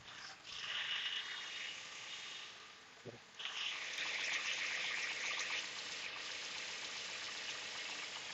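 Water poured from a plastic bottle into a car radiator's filler neck, in two pours with a short break about three seconds in. This is topping up the radiator with the engine running, so that trapped air bubbles out.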